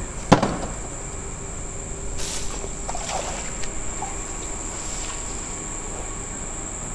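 Night insects keeping up a steady, high-pitched shrill, with a sharp knock about a third of a second in and brief rustling of leaves and stems around two and three seconds in.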